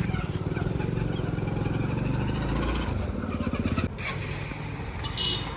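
Diesel engine of heavy farm or earthmoving machinery running steadily with a rapid firing pulse. The sound drops abruptly about four seconds in.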